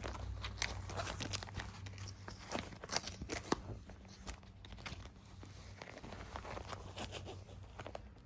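Irregular light clicks, knocks and rustling, as of things being handled, over a faint low hum.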